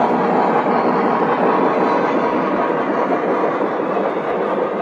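O gauge model train running on the layout's track, a steady rumble of wheels rolling over the rails.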